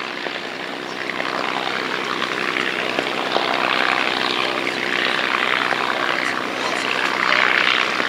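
North American P-51D Mustang's Packard Merlin V-12 engine and propeller running as the fighter rolls along the runway, growing gradually louder.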